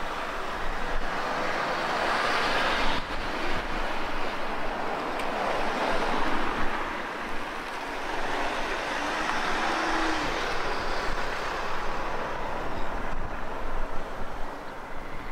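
Steady rushing of wind on the microphone, swelling and easing, over the faint sound of a distant steam train running.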